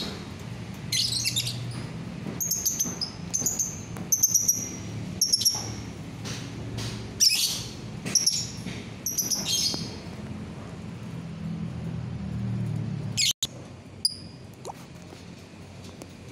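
Lovebird chirping: a quick run of short, shrill, high-pitched calls for the first ten seconds or so, then a few fainter calls after a click near the end.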